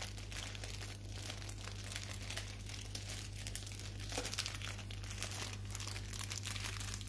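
A dog chewing and nibbling at a fleece blanket in its bean-bag bed, making a fine, continuous crinkling and rustling over a steady low hum.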